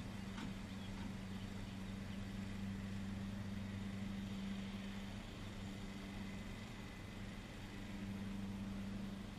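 2012 Chevrolet Silverado 1500's 5.3-litre V8 idling with the truck standing still: a steady low hum that weakens for a few seconds past the middle, then returns.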